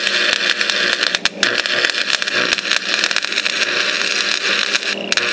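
Stick-welding arc crackling and sizzling steadily, with many fine pops, breaking off briefly about a second in and again near the end.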